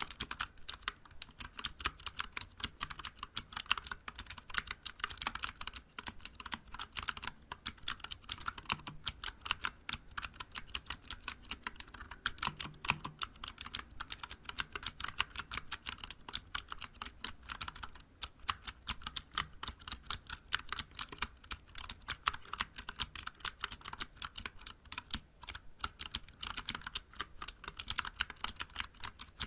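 Continuous typing on a Vortex Vibe mechanical keyboard with clicky Cherry MX Blue switches, SA-profile keycaps and an aluminium case. Each keystroke gives a sharp click, in a steady, fast run of several clicks a second.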